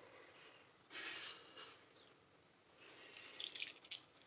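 Fenugreek seeds dropped into hot mustard oil in a kadhai, giving a faint short sizzle about a second in and a spatter of crackles near the end as the seeds start to fry.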